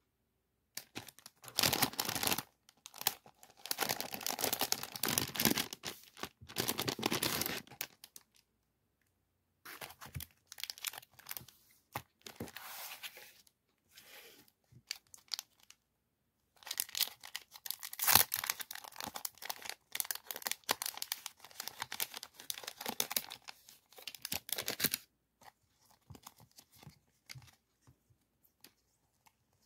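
Clear plastic sticker packaging crinkling and rustling as it is handled and unwrapped by hand. It comes in three long stretches with short pauses between them, then only faint rustles near the end.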